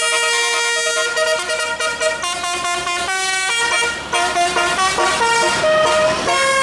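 Bus 'telolet' musical air horn playing a quick tune. Several horn notes sound together and step from pitch to pitch every fraction of a second, with a brief break about four seconds in.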